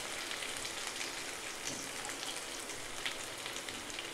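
Freshly added chopped onion frying in hot oil in a kadhai over a mustard-and-cumin tempering: a steady soft sizzle with a few faint crackles.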